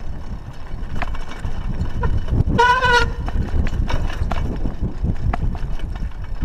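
Wind buffeting the chest-mounted camera's microphone while a bicycle rolls along a sandy dirt track, with light clicks and rattles from the bike over bumps. About two and a half seconds in, a short pitched call or horn-like tone sounds for about half a second.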